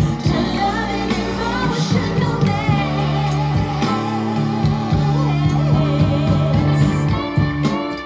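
A song with singing, guitar and bass played through a ZK-MT21 2.1 class-D amplifier module driving TEAC bookshelf speakers and a floor subwoofer, as a listening test of the amplifier. Near the end the singing drops out and plucked guitar carries on.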